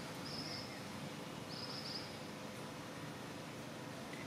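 Forest ambience: a steady hiss with two short, high trilling chirps, one at the start and one about a second and a half in.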